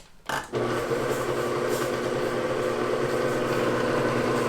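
Electric mixer switched on about half a second in and running steadily with an even motor hum, mixing dry baking ingredients in the bowl.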